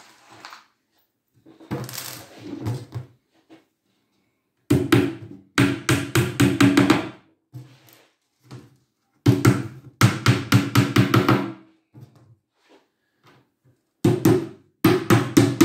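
Hammer driving small nails through a fibreboard cabinet back panel into the pine frame: quick runs of taps, several a second, in about four bursts with short pauses between.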